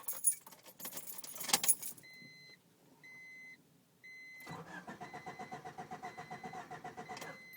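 Keys jangle and click in the ignition, a warning chime beeps three times, then the starter cranks the 1993 Honda Civic Del Sol's four-cylinder engine in fast, even pulses for about three seconds without it firing, and cuts off suddenly. This is the car's no-start fault, which the owner later traced to a failed ECU with a blown capacitor.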